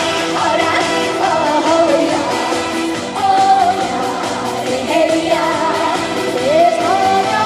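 A live Korean trot song: a woman sings a gliding, ornamented melody over a full band backing.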